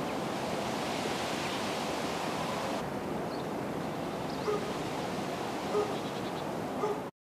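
Grill sizzling with a steady hiss, with a few short faint sounds over it near the end, cutting off suddenly.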